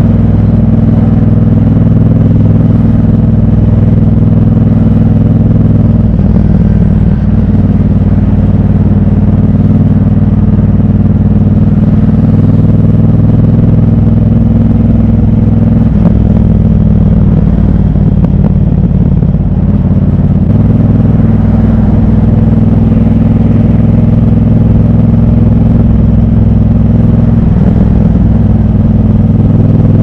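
Triumph Bobber's 1200 cc parallel-twin engine running under way at road speed. Its note changes several times as the throttle is opened and closed.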